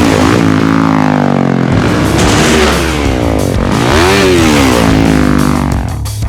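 Yamaha YZ450F dirt bike's four-stroke single-cylinder engine, revving up and down repeatedly under riding load, its pitch climbing and falling several times. It drops away near the end, leaving background music.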